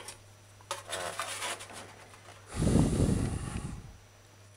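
Metal spatula scraping against an aluminum pan as a grilled sandwich is lifted off it: a few light clicks and scrapes, then a louder rubbing scrape lasting about a second, a little past halfway.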